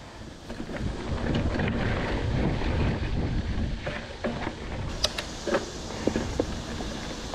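Mountain bike ridden fast along a dirt trail: wind buffets the camera microphone under the tyres' rolling noise, and the bike clatters and clicks over bumps after about five seconds.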